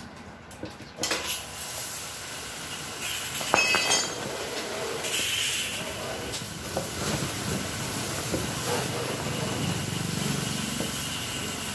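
Motorcycle tyre being worked onto a 14-inch alloy mag rim by hand and with a tyre lever: scraping knocks, and a short squeak of rubber on the rim about three and a half seconds in, over a steady hiss.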